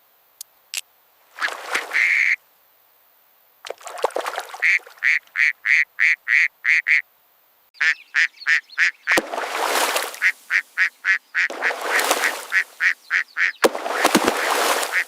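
Ducks quacking in runs of short, evenly spaced quacks, about four a second, broken by several bursts of rushing noise, the longest near the end.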